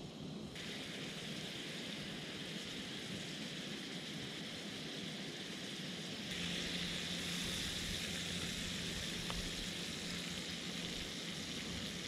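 Stingray pieces frying in butter in a small pan on a portable gas camping stove, sizzling steadily. The sizzle grows louder about half a second in, and again about six seconds in as the pieces are turned with tongs.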